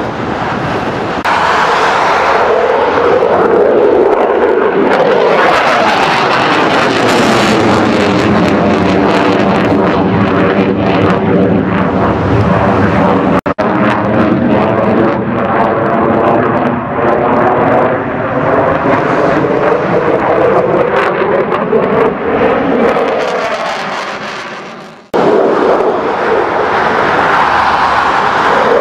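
Military jet aircraft engine noise as display jets pass overhead: a loud, steady rush with a sweeping, phasing tone in the middle as one flies past. The sound cuts out abruptly twice, about 13 seconds and 25 seconds in, then resumes with another jet.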